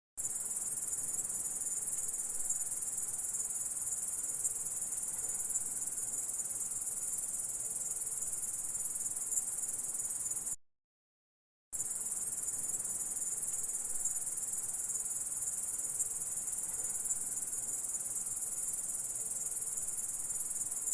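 Grasshopper stridulating: a steady, high-pitched, unbroken buzzing trill. It cuts out completely for about a second near the middle, then starts again unchanged.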